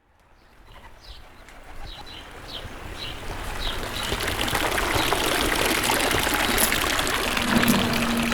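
Running water fading in and then flowing steadily, with a bird's short chirps repeating about twice a second in the first few seconds. A steady low held tone comes in near the end.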